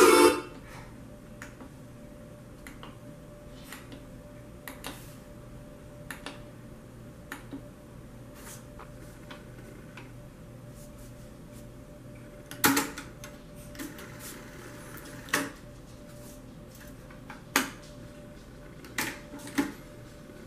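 Onkyo FM/AM tuner's front-panel push-buttons being pressed. The radio music cuts off just as it begins, then come a scatter of small clicks and a few louder sharp clicks in the second half, over a faint steady hum.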